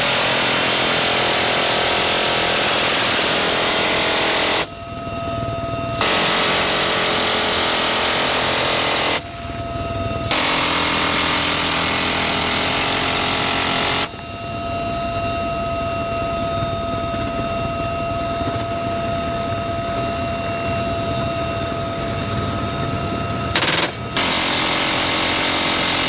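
7.62 mm minigun fired from a helicopter door mount in long bursts of about three to four seconds, each a continuous buzz with no separate shots to be told apart: three bursts in the first fourteen seconds, then another near the end. Between bursts, the helicopter cabin noise with a steady high whine.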